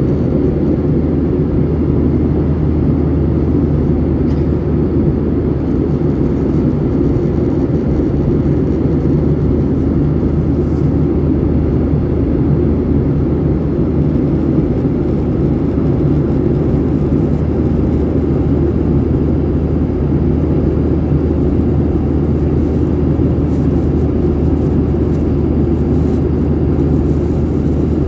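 Airliner cabin noise from a Pobeda Boeing 737-800: a steady, loud drone of the jet engines and airflow heard from inside the cabin, unchanging throughout.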